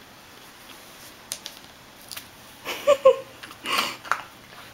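A person's voice: two short pitched sounds close together about three seconds in, then a short noisy burst, over a few faint clicks.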